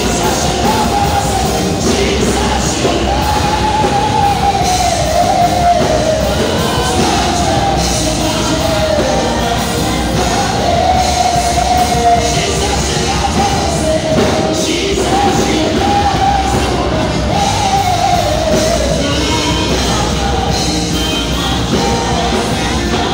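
Live gospel worship band, a lead singer and backing vocalists singing into microphones over keyboard, drums and electric guitar.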